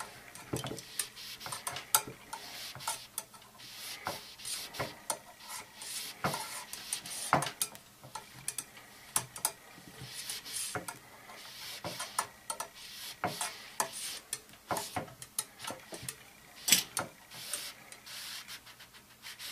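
A brass cleaning rod with a bore mop wrapped in oil-soaked paper-towel strips is worked back and forth inside the steel compression tube of a Crosman spring-piston air rifle. It makes repeated scraping and rubbing strokes, with many small clicks and knocks as the rod meets the tube and is twisted.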